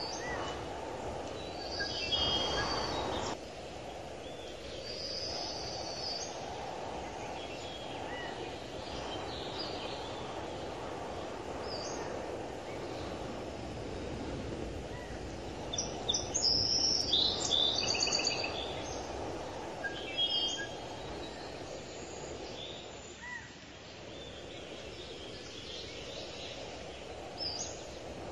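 Birds chirping and calling in short, high notes, busiest a little past halfway through, over a steady low outdoor background noise.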